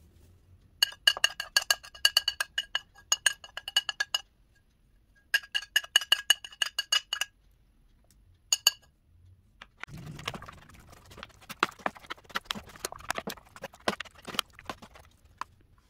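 Metal spoon clinking and scraping on a ceramic plate in quick runs of taps, the plate ringing after each, as yogurt and spices are pushed off into a bowl. From about ten seconds in, the spoon stirs raw chicken pieces and sliced onion in the bowl: wet squelching with knocks of the spoon against the bowl.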